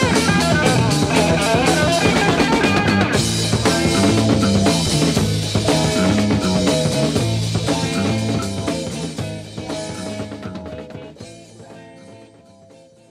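Psychedelic rock song with a drum kit and guitar, fading out over its last few seconds.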